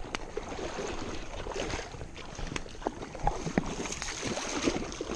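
A hooked bass splashing at the surface of a shallow, flowing river as it is reeled in, with short irregular splashes and clicks over a steady wash of running water.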